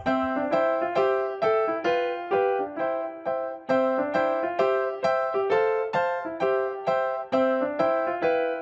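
Background music: a piano or keyboard tune of evenly spaced notes, about two a second.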